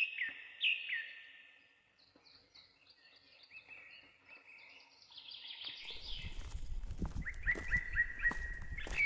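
Birds chirping and calling, with two loud downward-sliding calls in the first second, then scattered chirps. About six seconds in, a low rumble comes in suddenly beneath a quick run of repeated chirps.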